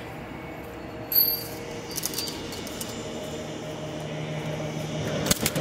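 Metal clinks and clicks from a steel carabiner on the lifeline cable being handled and clipped to the anchor strap's steel ring. There is a sharp ringing clink about a second in, smaller clicks soon after, and a quick run of clicks near the end, over a steady low hum.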